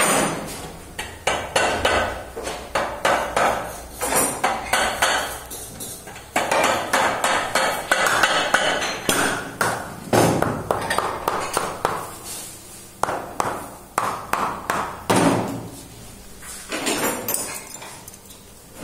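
Quick runs of sharp taps and knocks with short pauses between them: a shoemaker hammering while lasting a leather shoe upper over a plastic shoe last.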